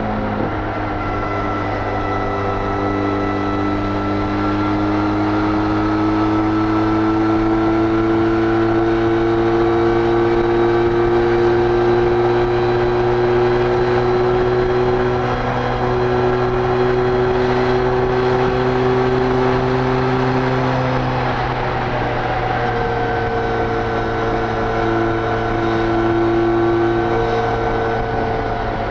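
Benelli Leoncino 500's parallel-twin engine on its stock exhaust, running at high revs at highway speed. Its pitch climbs slowly for about fifteen seconds, eases off slightly about two-thirds of the way through, then holds steady.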